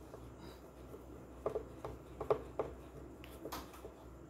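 Scattered small clicks and scrapes, about half a dozen, of stiff screws being worked out of a subwoofer speaker box to free its driver.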